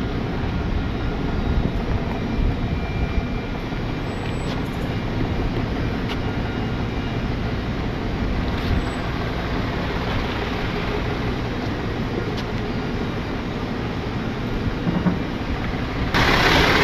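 Tow truck engine running steadily at low speed while the wrecker creeps through a tight turn with a car on its wheel lift. It gets suddenly louder just before the end.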